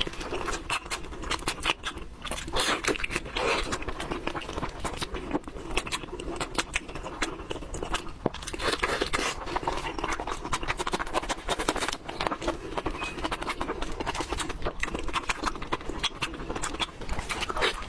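Eating sounds: steady, irregular crunching and chewing with many small crackling clicks.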